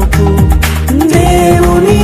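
Background music from a Telugu Christian wedding song, with a steady bass pattern and a melody line that slides up about a second in.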